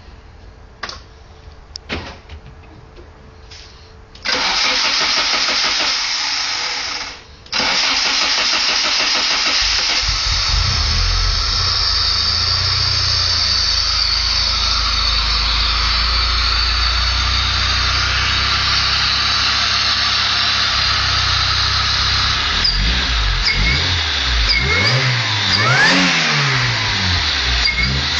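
Cold start of a Honda Civic SOHC engine with a Jackson Racing supercharger. A few clicks, then the engine cranks for about three seconds, catches and settles into a steady idle. It is revved a few times near the end.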